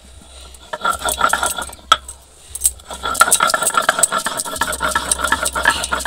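Stone roller (nora) worked back and forth on a flat grinding stone (shil), crushing mustard seeds into paste: a gritty scraping and crunching full of small clicks. It eases off briefly about two seconds in, then runs steadily.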